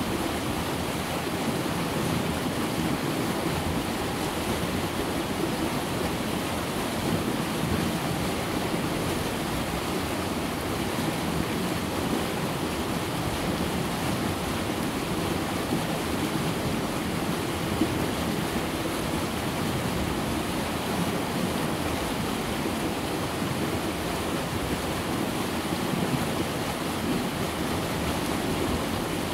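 River rapids rushing steadily over and between rocks, a dense, even roar of water.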